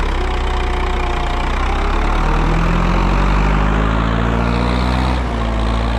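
Ursus tractor's diesel engine running close by while pulling a loaded hay trailer. Its pitch rises slowly over a few seconds and drops back about five seconds in.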